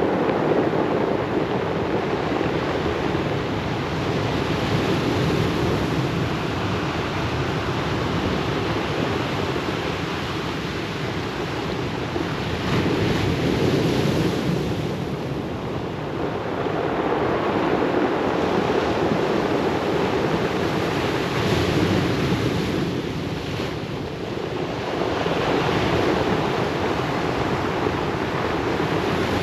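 Ocean surf: waves breaking and washing up the beach in a steady rushing wash that swells and eases every few seconds.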